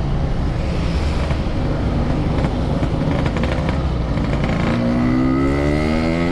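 Yamaha RX King's 135cc two-stroke single-cylinder engine running under way, with wind noise on the microphone. About five seconds in, the engine note rises steadily as the bike accelerates.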